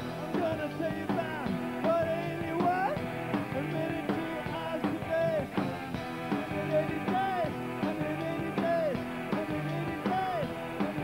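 A live garage-rock band playing: electric guitars, drums and organ, with notes bending up and down over a driving rhythm.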